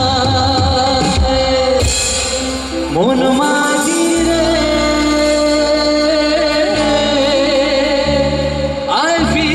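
A man singing a Bengali song live into a handheld microphone, holding long notes with vibrato and sliding between pitches, over a live band with keyboard, guitar and a bass line.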